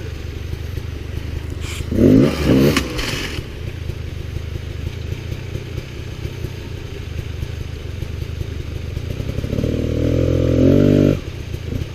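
Dirt bike engine running, revved briefly about two seconds in. Near the end it climbs in pitch for over a second, then cuts off sharply as the throttle is shut.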